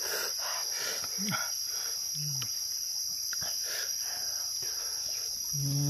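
Steady high-pitched drone of insects. Close-up chewing of a mouthful of food goes on throughout in a soft repeating rhythm, with two short hums of 'mm' early on and a longer 'mm-hmm' near the end.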